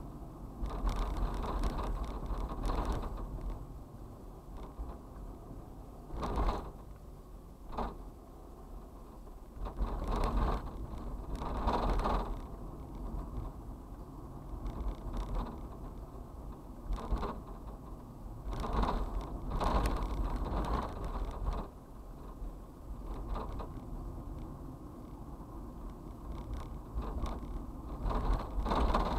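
Road and cabin noise of a vehicle driving through city traffic: a steady low rumble with short louder bursts every few seconds.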